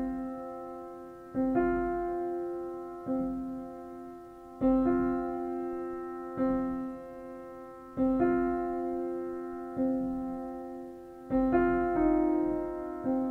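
Background music: slow piano chords, a new chord struck about every one and a half seconds and left to ring and fade.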